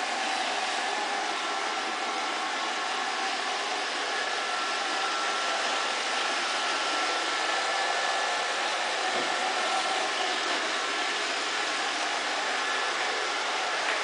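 Roomba robot vacuum running: a steady whir of its motor and brushes with a faint high whine.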